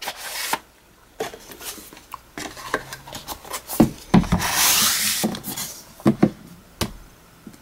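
Cardboard Blu-ray box set handled and closed: the inner box slides into its cardboard slipcover with one long scraping rub a little past the middle, among light taps and knocks of the cardboard against hands and table.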